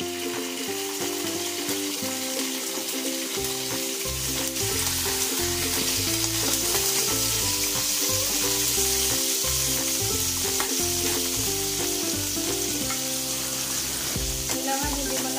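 Salmon steaks sizzling in hot oil in a frying pan, the sizzle growing stronger after a few seconds.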